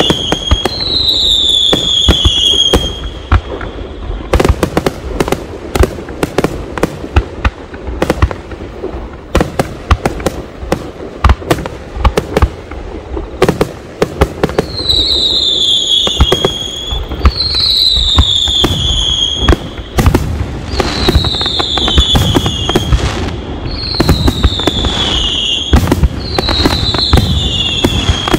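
Aerial fireworks shells bursting in quick succession: a dense run of sharp bangs and crackles. A high whistle that falls in pitch repeats every two seconds or so near the start and through the second half.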